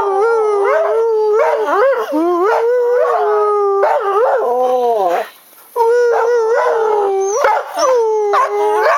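Dog howling: long drawn-out howls that hold near one pitch and slide up and down, with a short break about five seconds in.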